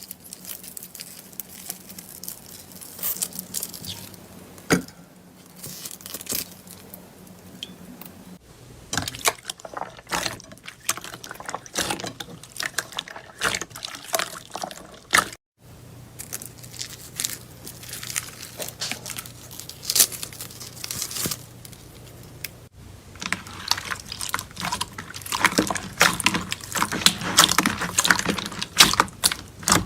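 Slime being squished and worked by hand: a run of irregular wet clicks, crackles and pops. The sound cuts out abruptly twice, and the crackling grows denser over the last several seconds.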